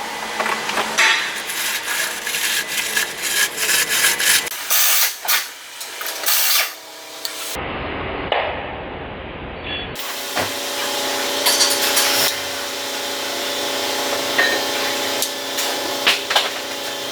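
Scraping, rubbing and clicking of hand tools and parts being handled, broken into short segments by cuts, with a steady hum under the clicks in the later part.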